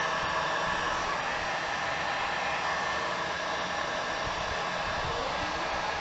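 Heat gun blowing hot air in a steady rush with a faint steady whine, shrinking heat-shrink tubing over the end of a cable.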